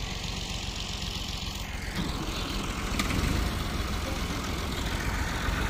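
Massey Ferguson 240 tractor's three-cylinder diesel engine running under load as it hauls a laden trolley through soft sand. The sound gets louder about two seconds in.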